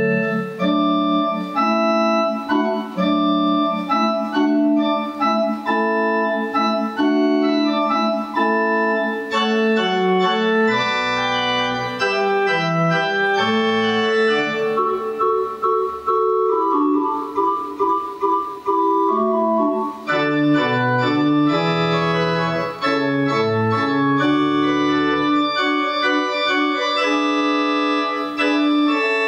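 Electronic organ with pedalboard playing a slow piece of sustained chords on the manuals, with low pedal bass notes coming in about a third of the way through and again in the last third.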